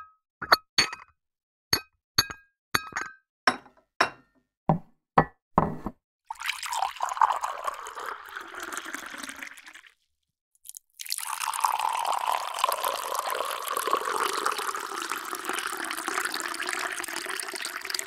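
A dozen or so short, ringing china clinks over the first six seconds, then tea pouring into a cup twice: a short pour of about four seconds and, after a brief gap, a longer steady pour of about seven seconds.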